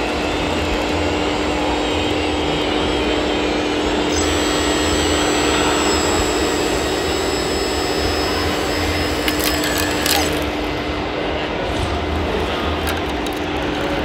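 Hydraulic pump of a radio-controlled three-axle tipper truck whining steadily as it raises the dump bed and tips out a load of soil. A higher whine joins in a few seconds in, and a few short clicks come near the end.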